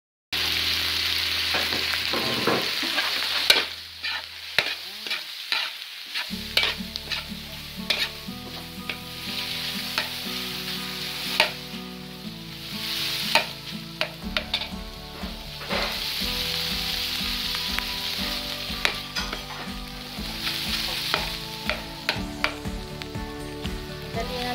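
Diced boiled pork and chicken with onions sizzling in a metal wok while a metal spatula stirs, scraping and clicking against the pan many times. The sizzle is loudest in the first few seconds.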